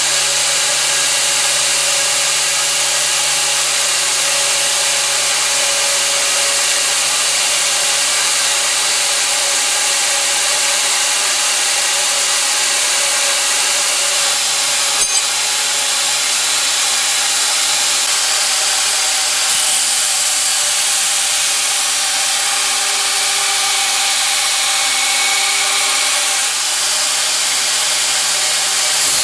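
2x72 belt grinder driven by a 3 hp three-phase motor running steadily at high belt speed, about 7,000 surface feet per minute: an even, loud rushing hiss of the abrasive belt over its wheels. A single click about halfway.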